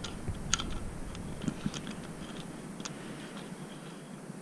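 A few faint, sharp clicks and taps of small hardware being handled, with a pair about half a second in and more near the middle.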